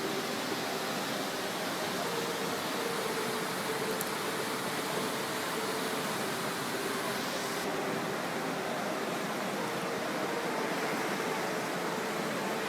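Floodwater rushing past in a steady, unbroken roar, with a faint steady hum beneath it.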